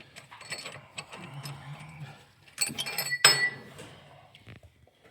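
Metal clinks and scrapes of hand tools and steel clutch parts being fitted back together on a 1929 McCormick-Deering 22-36 tractor, with one sharp metallic clank that rings briefly a little past halfway.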